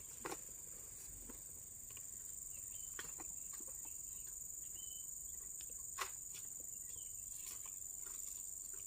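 Steady high-pitched insect chorus, cricket-like, with a few faint sharp clicks and a couple of brief bird chirps.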